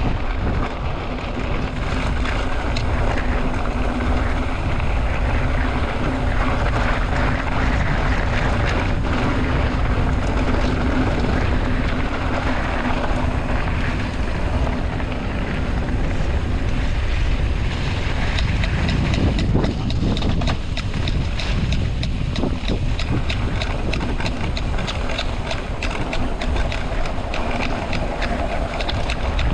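Mountain bike being ridden on a trail, with wind rushing over the microphone and tyre noise in a steady loud rush. A faint steady hum runs through the first half, and rapid clicking and rattling come near the end.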